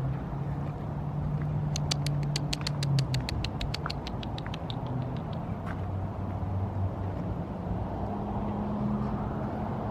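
Car engine idling, a steady low hum. A quick run of about twenty sharp clicks comes about two seconds in and fades out by about four seconds.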